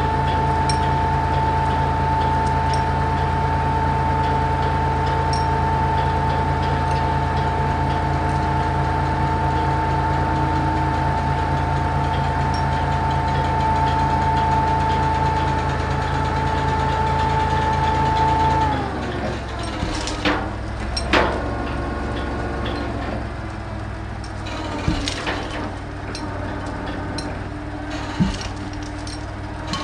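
Truck crane's engine and hydraulics running under load with a steady whine, which drops in pitch and falls back to a lower idle about two-thirds of the way through. After that come several sharp metal clanks and knocks from the crane's chains and the concrete blocks being handled.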